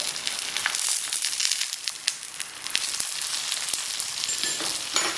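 Oil sizzling and crackling in a hot pan around a banana-leaf parcel of sardines, just after a little more oil has been poured in. A steady hiss with frequent small pops.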